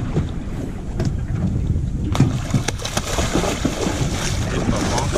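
Wind buffeting the microphone over water sloshing around a small fishing boat, a steady low rumble throughout, turning hissier from about two seconds in.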